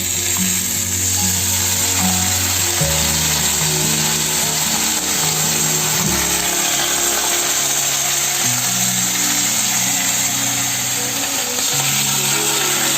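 Water hitting the hot oil in a wok of frying dumplings, sizzling loudly and steadily as it boils off into steam. Background music plays under it.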